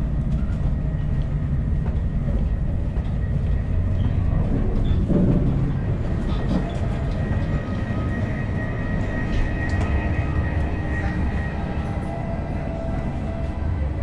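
DB ICE 1 high-speed train running, a steady low rumble of the train in motion, with a faint high tone coming through in the second half.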